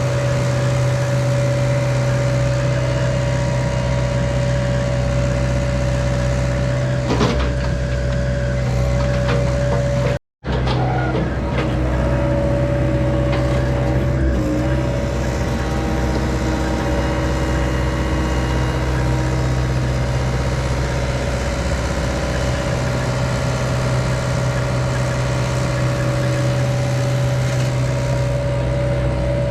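John Deere 85G excavator's diesel engine running steadily under load with its hydraulics working, with a few brief knocks and a momentary cut to silence about ten seconds in.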